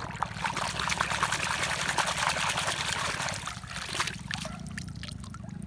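Water splashing and trickling, with many small clicks in it and a steady low hum underneath; the splashing eases off after about three and a half seconds.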